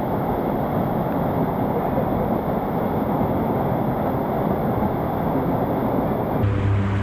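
Motorized river raft under way: a steady, noisy mix of motor, rushing water and wind on the microphone. Near the end the sound cuts abruptly to a steadier low hum.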